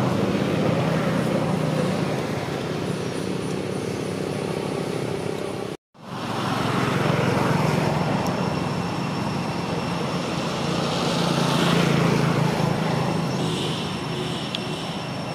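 Steady rumble of passing motor traffic with a low engine hum, cutting out completely for a moment about six seconds in.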